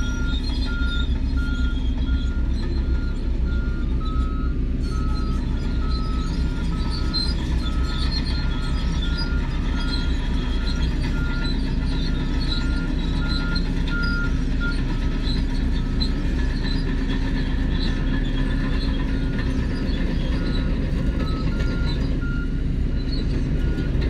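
Diesel engines of crawler bulldozers running steadily under load, with a reversing alarm beeping in two alternating tones about twice a second. The alarm breaks off for a moment past the middle and again near the end.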